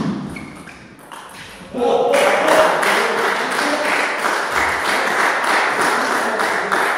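A small audience of spectators applauding and cheering after a table tennis point, starting about two seconds in and lasting about five seconds, after a loud sudden sound at the very start that fades over the first second.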